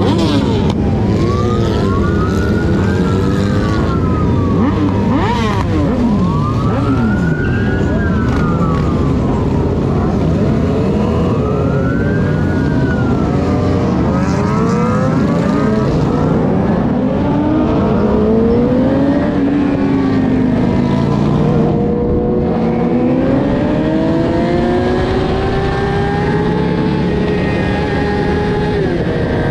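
Several sport-bike engines revving and accelerating together, their pitches sweeping up and down and overlapping. In the second half the pitch climbs more slowly and steadily as the bikes pull away.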